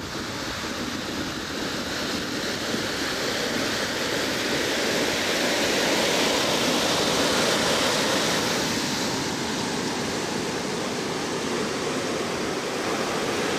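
Ocean surf rushing onto a sand beach, a continuous wash that swells to a peak about halfway through and then eases back.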